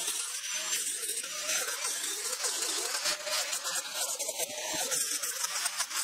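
Electric angle grinder with an abrasive sanding disc running against the edges of squared timber beams, sanding the wood. It runs steadily, its pitch wavering as it is pressed into and eased off the timber.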